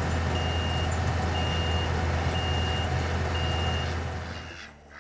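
Skid steer's diesel engine running steadily while its backup alarm beeps about once a second, half a second on and half off. The sound drops away sharply about four and a half seconds in.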